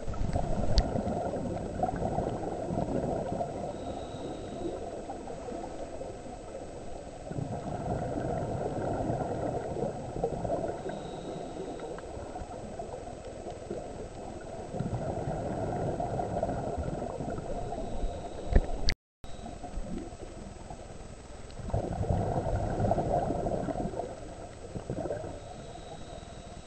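Scuba diver's exhaled bubbles from the regulator, heard underwater: four long gurgling bursts, one per breath, several seconds apart, with quieter stretches between.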